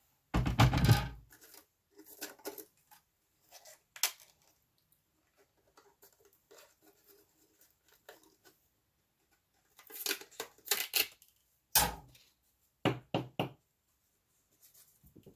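Scattered knocks and clacks of cutting plates, a magnetic platform and a metal die being handled and separated, with a loud clunk about half a second in and a cluster of clicks near the end, and some paper crinkling.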